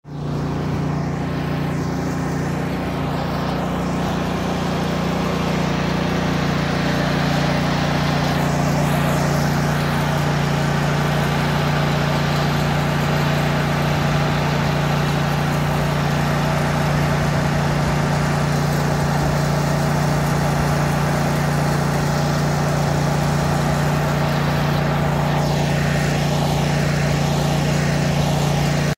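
Truck engine running steadily at an even speed, a low, unchanging engine note.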